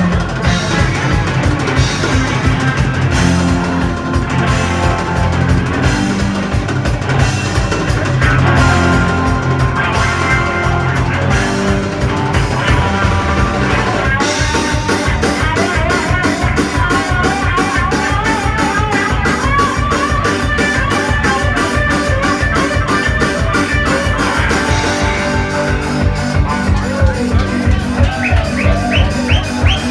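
Live rock band playing loudly, with drum kit, bass and electric guitar over a steady driving beat. Near the end a short rising figure repeats quickly several times.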